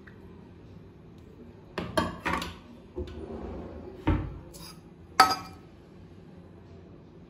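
Kitchen dishes and utensils clinking and knocking, about six separate strikes over three seconds. The sharpest and loudest clink comes a little after five seconds in.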